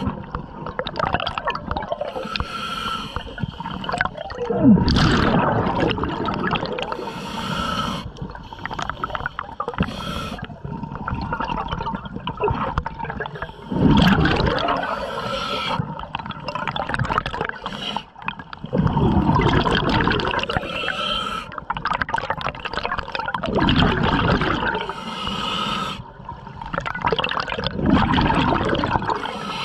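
Scuba diver breathing through a regulator underwater: every few seconds an exhalation sends out a rumbling, gurgling rush of bubbles, with hissing inhalations in between.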